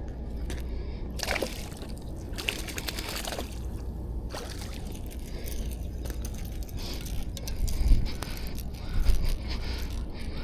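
Water splashing and sloshing in short bursts over a steady low rumble, with a couple of louder low thumps near the end.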